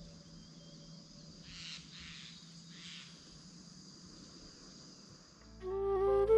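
Faint, steady high-pitched buzz of insects in the hillside vegetation, with two brief hissy swells partway through. About five and a half seconds in, a flute melody comes in and is louder than the buzz.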